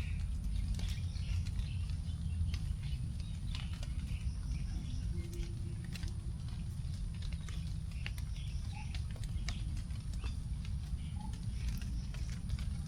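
Last raindrops after rain dripping irregularly onto leaves, with birds chirping on and off, over a steady low rumble.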